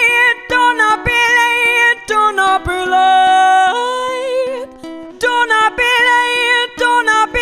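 A woman singing long held notes with vibrato over a strummed acoustic string instrument, in a live solo song performance.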